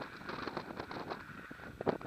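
Strong gusty wind buffeting the microphone in irregular blasts, growing louder near the end.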